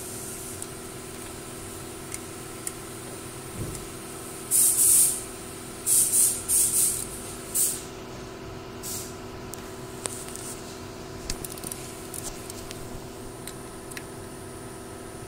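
Ratchet wrench turning out the thermostat housing bolts: a cluster of short bursts of ratcheting about four to eight seconds in, then scattered light clicks, over a steady hum.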